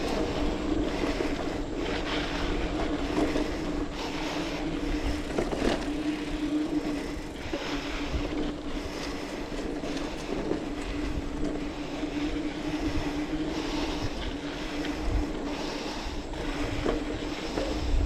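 Specialized Rockhopper mountain bike rolling along a dirt trail: steady tyre and drivetrain noise with a constant hum, small knocks and rattles, and wind rumbling on the action-camera microphone.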